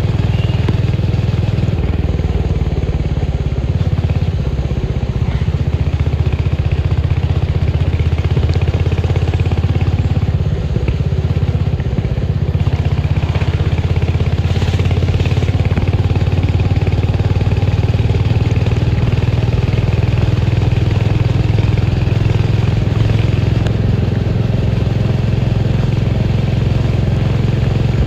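Royal Enfield Hunter 350's single-cylinder engine and exhaust thumping steadily while riding, its note shifting up and down a few times with speed.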